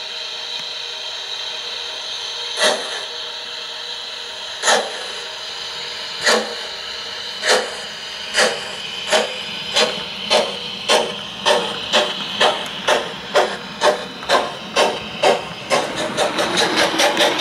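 Gauge 0 model of a class 38 steam locomotive pulling away: exhaust chuffs start about two seconds apart and come steadily faster, about five a second near the end, over a steady steam hiss.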